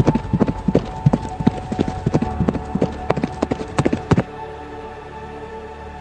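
Galloping horses' hoofbeats, a fast irregular run of knocks, over a steady held music drone; the hoofbeats stop about four seconds in, leaving only the music.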